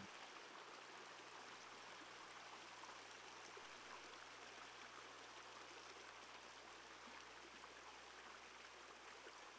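Faint, steady rush of a shallow creek running over a stony bed.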